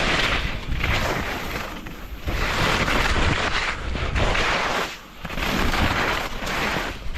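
Skis scraping and hissing through chopped-up snow on a steep mogul field, one swish for each turn, roughly once a second. Wind rumbles on the microphone underneath.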